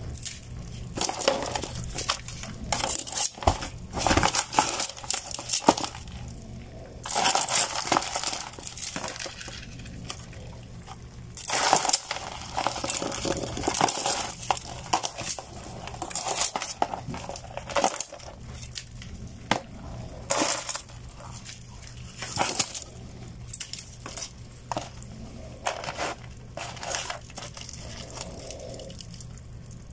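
Live crabs and fish being shifted about in a basin: shells clicking, clattering and scraping against each other and the basin wall in irregular bursts of rustling.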